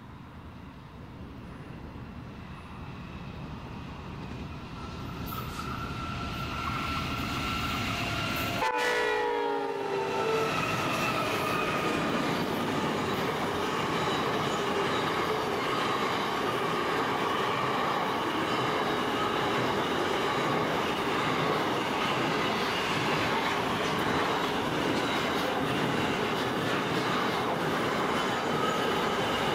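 Two NR class diesel-electric locomotives approaching at speed and sounding the horn, growing louder, with the horn's pitch dropping sharply as they pass about nine seconds in. Then a long container train's wagons roll by in a steady, loud rumble of wheels on rail with some clickety-clack.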